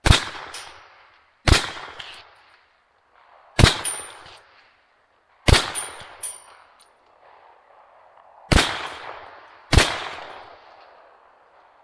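Six rifle shots fired one at a time at irregular gaps over about ten seconds. Each crack is followed by an echo rolling off over about a second, with a fainter second crack about half a second after several of them.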